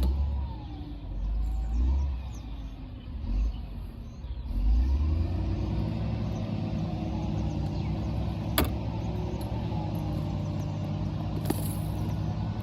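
A motor engine hum starts about four and a half seconds in and runs steadily at an even pitch. Before it come several low rumbling thumps, and two sharp clicks sound near the end.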